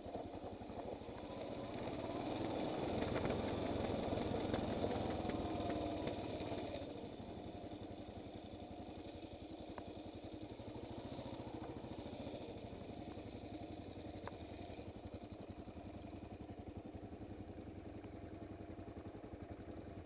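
Kawasaki KLR650 single-cylinder engine running at low speed, heard from the rider's helmet. It is louder for a few seconds near the start, the pitch shifts at about six seconds, and then it runs steadily and more quietly, with occasional light clicks.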